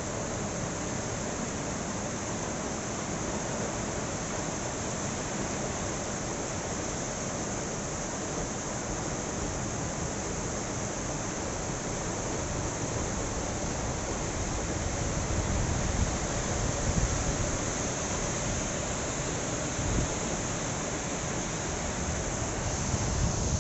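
Heavy monsoon rain falling steadily with strong wind, as a constant hiss. About halfway through, gusts start buffeting the microphone with low rumbles that come and go.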